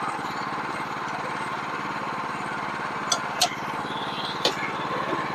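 Small gas engine of a portable bandsaw sawmill running steadily while the saw head is pushed along, edging a board. A few sharp clicks come about three to four and a half seconds in.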